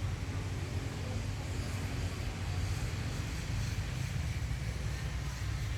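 Steady low rumble with an even hiss above it: outdoor background noise.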